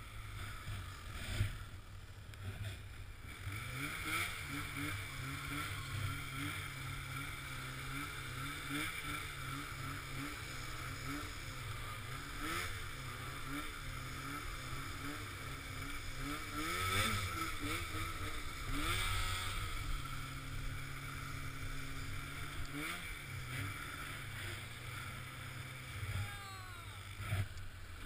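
Snowmobile engine running steadily at a low idle, heard muffled, growing a little louder for a few seconds around the middle.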